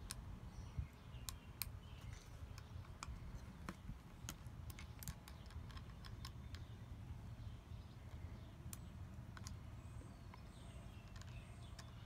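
Sparse light clicks and taps of a Manfrotto 410 geared tripod head and its metal quick-release plate being handled and turned on a tabletop, more frequent in the first half, over a faint low rumble.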